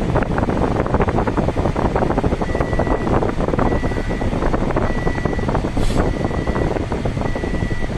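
Steady rumbling noise of a car driving through the enclosed vehicle deck of a car carrier ship. From about two and a half seconds in, a high electronic beep repeats about once every 1.2 seconds.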